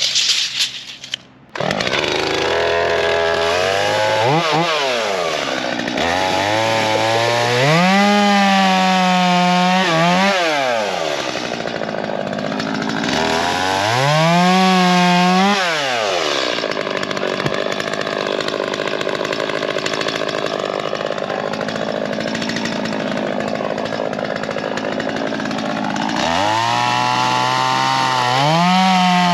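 Two-stroke chainsaw starting, then revved up and down several times, with a steadier stretch in the middle.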